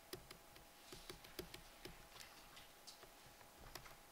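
Faint, irregular ticks and taps of a pen stylus on a digital writing surface as a word is handwritten, over a faint steady hum.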